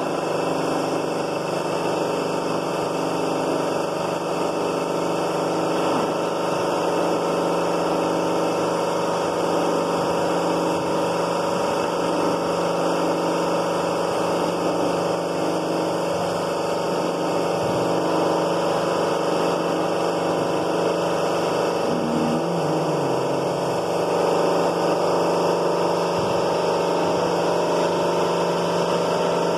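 Motor-driven railway-coach lifting jacks (MD-523 bogie lifting system) running: a steady mechanical hum with several held tones.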